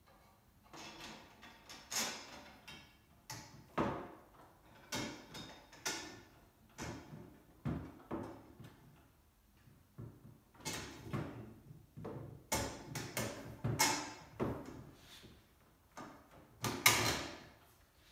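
Irregular metal knocks, clinks and short scrapes as the tubular steel frame of a wheelbarrow and its bolts are handled and fitted together by hand, with the sharpest knock near the end.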